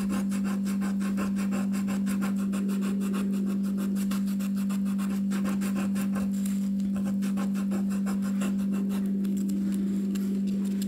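A crumpled ball of kitchen aluminium foil scrubbed rapidly back and forth over the rusty steel jaws of pliers, a continuous run of scratchy rasping strokes as the rust is scoured off. A steady low hum runs underneath.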